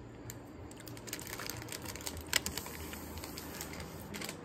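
A quiet draw on a disposable vape: a soft hiss with a few faint clicks, over a low steady hum.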